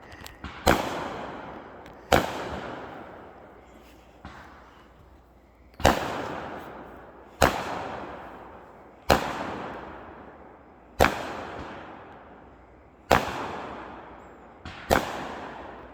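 A string of fireworks going off: about eight loud bangs, one every one and a half to two seconds, each trailing off in a long echo, with a fainter pop among them.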